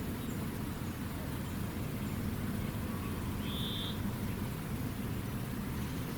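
Outdoor ambience with a steady low rumble, a few faint high bird chirps near the start and one short bird call about halfway through.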